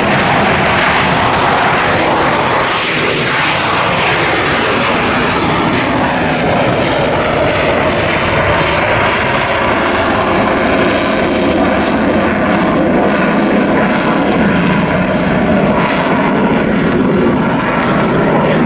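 F/A-18 Hornet's twin F404 turbofan engines running in afterburner as the jet passes, a loud, continuous jet noise. Its pitch sweeps downward a few seconds in as the aircraft goes by.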